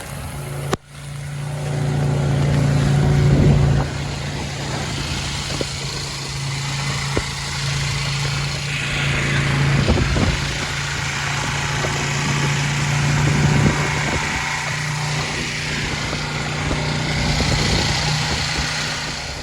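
Motor vehicle engine running steadily with a low, even hum, the sound dropping out briefly about a second in.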